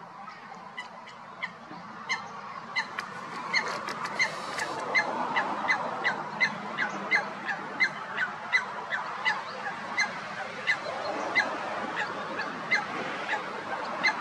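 Eurasian coot calling: a long series of short, sharp, high calls, about two a second, beginning about two seconds in, over steady background noise.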